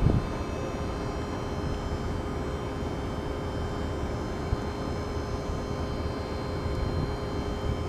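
Class 218 diesel locomotive's MTU V12 diesel engine idling at standstill: a steady low rumble with a high whine made of several unchanging tones.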